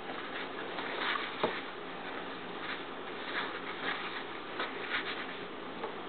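Hands folding and pressing a fabric nail-bending wrap on a wooden table: soft rustling and rubbing with light scattered taps, and one sharper click about a second and a half in.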